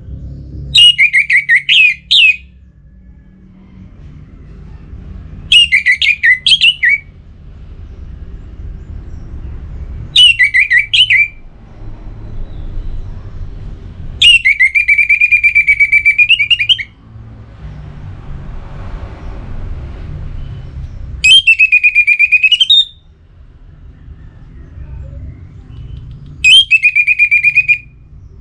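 Orange-headed thrush singing loud phrases every four to five seconds, a song given to call out a rival. The first three phrases are quick runs of notes and the later three are long held whistles, one rising at its end. A low rumble runs underneath between the phrases.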